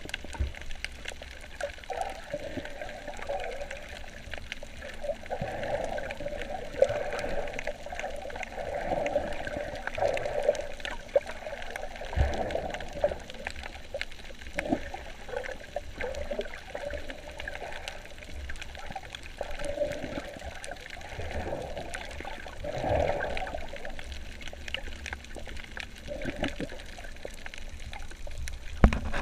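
Water sloshing and gurgling around a snorkeller's camera, with irregular bubbly bursts and the odd low thump.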